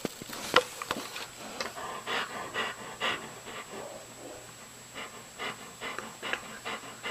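Dog panting in short quick breaths, about two a second, with a sharp click about half a second in.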